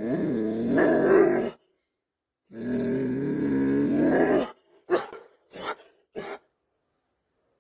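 Doberman pinscher giving two long, wavering, growl-like vocalizations of a second or two each, then three short barks.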